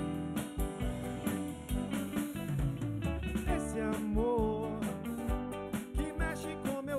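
A live band playing: drum kit keeping a steady beat under electric bass and electric guitars, with a melody line bending in pitch about halfway through.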